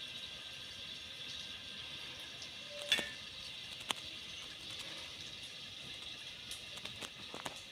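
Kitchen sounds: a steady, faint sizzling hiss, with one ringing clink of kitchenware about three seconds in and a few light clicks near the end.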